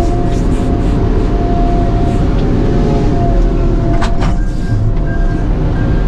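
Logging machine's engine running steadily under a steady high tone. A sharp click about four seconds in, then short beeps repeating a little faster than once a second.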